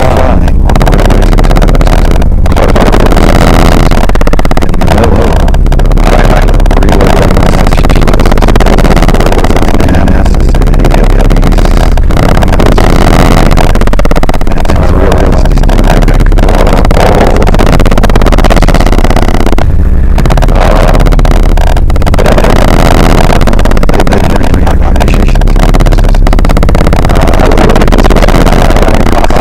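Harsh noise / power electronics: a loud, dense wall of distorted electronic noise, unbroken apart from brief dropouts about two seconds in and about twenty seconds in.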